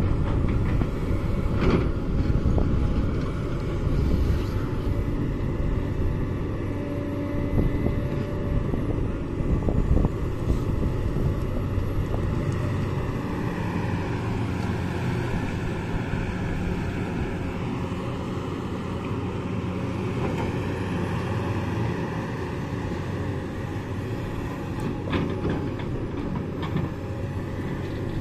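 Sumitomo 350 crawler excavator at work: its diesel engine runs steadily under load while the bucket digs into the earth, lifts and swings to load a dump truck, then returns to dig again. There are a few sharp knocks of stone and steel, and a hydraulic whine that shifts in pitch midway as the boom raises the load.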